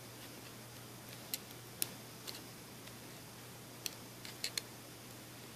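Scattered small clicks and taps, about seven in all and mostly in the second half, from small tools and fingers working at the flex cable inside an opened Sky 6.0Q smartphone, over a steady low hum.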